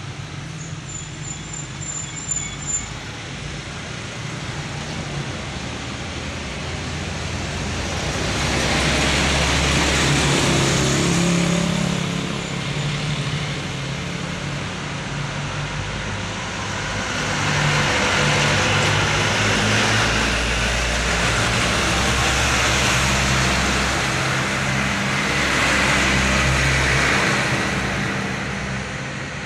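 Heavy trucks hauling sugarcane driving past one after another, engines running and tyres rushing on the road. The sound swells as a truck goes by about eight to twelve seconds in, and again for a longer stretch from about seventeen seconds until near the end.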